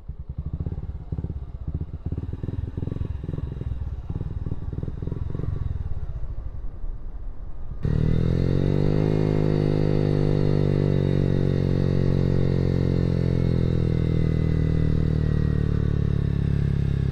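Motorcycle engine running with an uneven, pulsing beat; about eight seconds in the sound switches abruptly to a louder, steady engine note that dips slightly in pitch and then holds.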